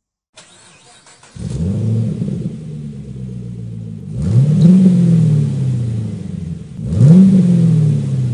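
Car engine coming in suddenly about a second and a half in and running at idle, then revved twice, each rev rising sharply in pitch and falling back.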